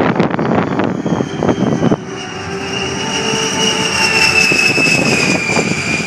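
A-10 Thunderbolt II's twin turbofan engines whining in a pass, the high whine slowly falling in pitch over a broad jet rush.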